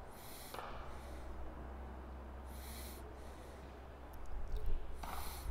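Wind on an outdoor microphone: a steady low rumble with three short gusts of hiss, the last near the end, and a louder stretch in the final second and a half with a few faint sharp clicks.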